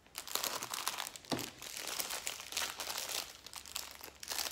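Clear plastic packaging crinkling as a wrapped bundle of bagged diamond-painting drills is picked up and handled, with a single knock about a second and a half in.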